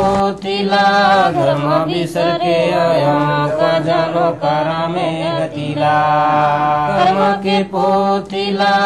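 Chanted singing in a folk style, long held notes that bend between pitches over a steady low tone.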